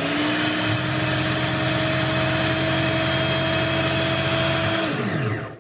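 Parkside PBSG 95 D5 drill bit sharpener's 95 W motor running unloaded with a steady whine and hum, shaking on the table. It is switched off near the end, and its pitch falls as the grinding wheel spins down.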